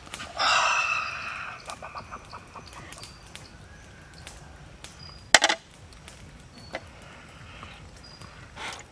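Large knife cutting and jointing a whole raw chicken on a board: a loud scraping cut early on, scattered small clicks, and one sharp knock about five and a half seconds in.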